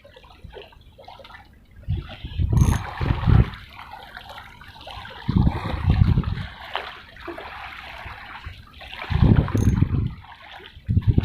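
Seawater sloshing and lapping, swelling in low surges about every three to four seconds, with a fainter trickling wash between them.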